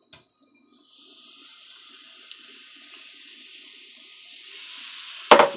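Vinegar poured slowly onto baking soda: a fizzing hiss that starts about half a second in and grows louder as the reaction builds. A single sharp knock comes near the end.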